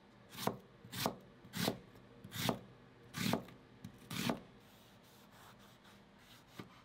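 Global chef's knife slicing an onion on a cutting board: six slow, steady strokes, each a crisp cut ending in a knock on the board. One lighter knock follows near the end.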